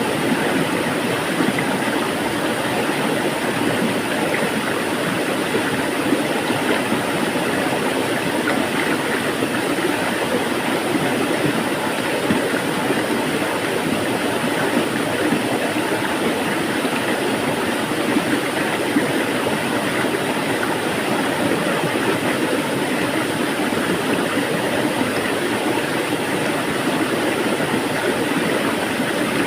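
Flowing water making a steady, even noise with no change in level.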